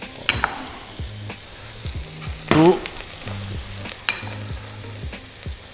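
Steady sizzling of vegetables cooking in a stainless steel pot, over a low hum. Stainless steel pots and utensils clink twice with a short ring, and a brief pitched squeak or sound comes a little past halfway.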